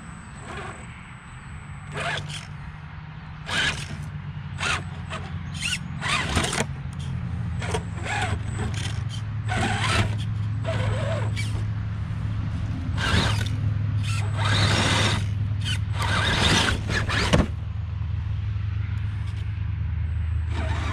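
Redcat Gen8 RC rock crawler's electric motor and geared drivetrain humming low and steady at crawl speed, with repeated short scrapes and knocks as its tyres and chassis grind over the rocks.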